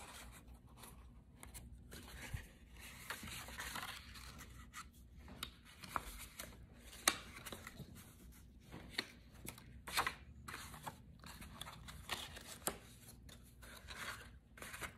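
Cardstock being folded and creased by hand along score lines: a quiet, continual paper rustle broken by short, sharp crackles as the folds are pressed.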